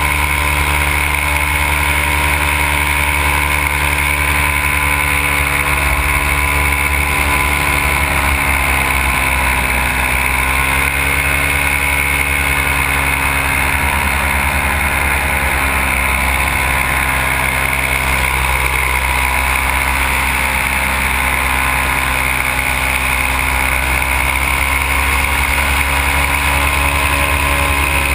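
Simonini two-stroke paramotor engine running steadily in flight, its pitch dipping slightly about ten seconds in and then recovering.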